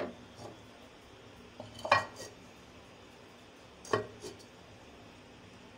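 Clay lid knocking against the rim of a clay handi (earthenware cooking pot) as it is set on to cover it: two short clinks of clay on clay about two seconds apart, the first the louder, each followed by a lighter tap.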